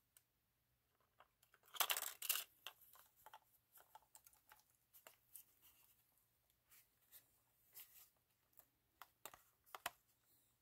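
AA batteries being pushed into the plastic battery compartment of an Altura speedlight flash, with clicking and scraping as the flash is handled. A cluster of louder clicks and scrapes comes about two seconds in, followed by scattered faint ticks.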